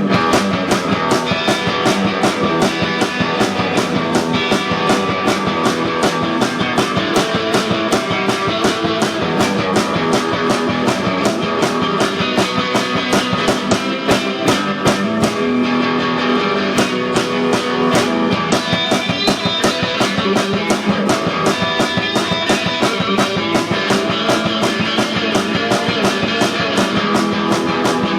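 Live punk rock played loud: electric guitar over a fast, steady drum beat.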